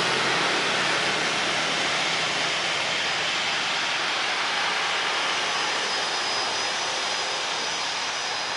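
Twin rear-mounted turbofan engines of a business jet running at low thrust as it taxis: a steady jet hiss and rumble with a faint high whine, slowly fading.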